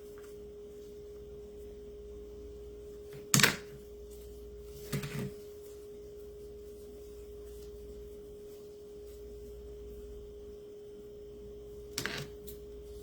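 Craft materials being handled and set down on a tabletop: a sharp knock about three seconds in, a softer double knock about two seconds later, and a few light clicks near the end. A steady faint electrical hum runs underneath.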